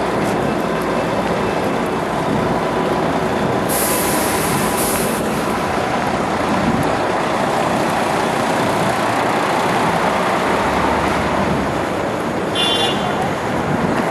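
Busy city street traffic running continuously, with buses among the vehicles. About four seconds in a bus's air brakes let out a sharp hiss lasting over a second, and a short high squeal sounds near the end.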